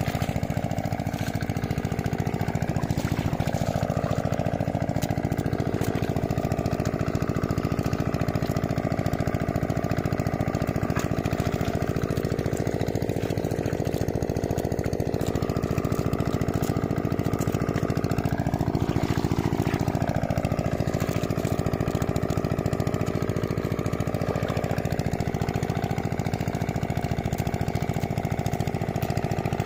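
A small engine running steadily at an even speed, with a slight wavering in its tone now and then.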